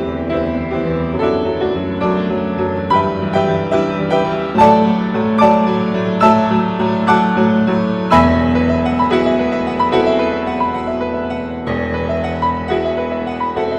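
Piano music: single notes struck one after another over held low chords, with a new, deeper chord coming in about eight seconds in.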